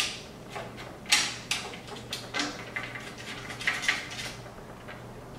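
Small Torx screws being started by hand into a carbon fiber trim piece, with scattered light clicks and knocks as the screws and parts are handled.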